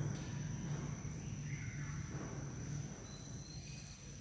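Background tone in a pause between speech: a steady low hum with a thin, steady high-pitched whine over it.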